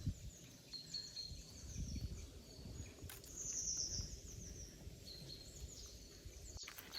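Small songbirds chirping in woodland, with a short falling trill about three seconds in, over a steady low rumble. A stray crunch of dry autumn leaves underfoot.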